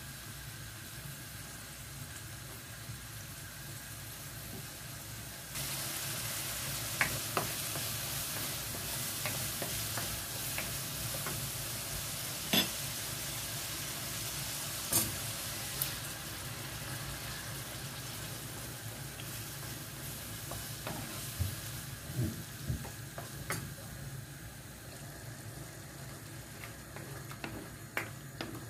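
Chopped tomatoes and garlic sizzling in olive oil in a frying pan while a wooden spoon stirs them, with occasional sharp knocks of the spoon against the pan. The sizzle gets louder about five seconds in and softens over the last few seconds as the pan fills with sauce.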